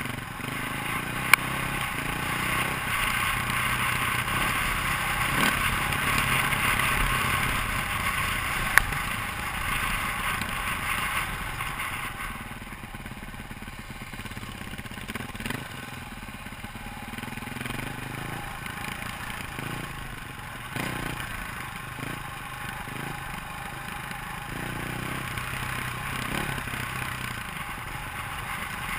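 KTM dirt bike engine running while riding a dirt trail, heard from a helmet-mounted camera with wind and tyre noise. It is louder for the first ten seconds or so, then eases off. Two sharp clicks, about a second in and about nine seconds in.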